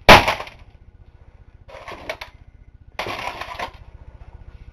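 A single heavy sledgehammer blow on a laptop's plastic case, then two shorter, quieter clattering rattles about two and three seconds in.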